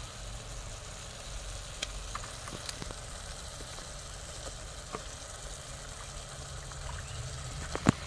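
Tomatoes and beef sizzling faintly in a pot over a charcoal jiko, with a few light clicks as a wooden spoon scrapes boiled beef pieces out of a plastic container, two sharper ones near the end. A low steady rumble runs underneath.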